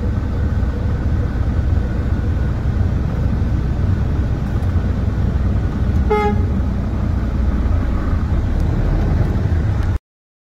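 Low, steady rumble of heavy diesel engines idling and working, with one short horn toot about six seconds in. The sound cuts off abruptly near the end.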